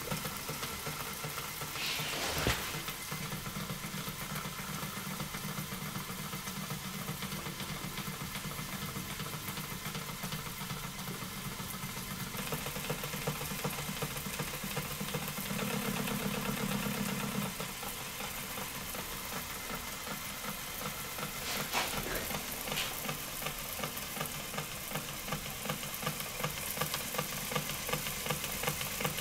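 Small electric motor spinning a rotor in a water-filled tank at about 535 RPM: a steady motor hum under the hiss and churn of swirling, spraying water. A sharp knock sounds about two seconds in and a weaker one later, and part of the low hum drops away partway through.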